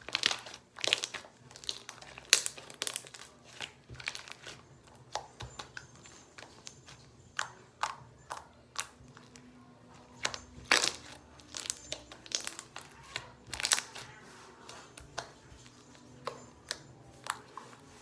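Smooth, stretchy slime being squished and pressed by hand, giving irregular sharp wet clicks and pops, several a second at times.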